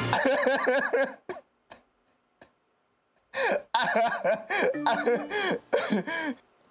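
A man laughing in wordless outbursts: a short burst, a pause, then a longer run of laughter.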